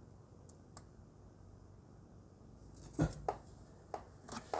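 Mostly quiet room tone with a couple of faint ticks, one louder knock about three seconds in, and a quick run of short clicks near the end.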